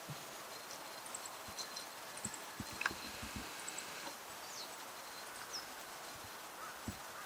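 Short, thin, high call notes ('tsit'), given singly and spaced irregularly, from a small bunting that the uploader takes for a female meadow bunting. A sharp click sounds about three seconds in, with a few faint low knocks around it.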